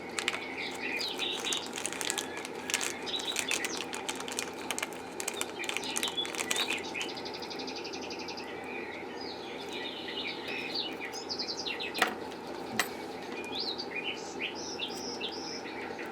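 Small birds chirping and tweeting over a steady low hum, with two sharp clicks about three quarters of the way through.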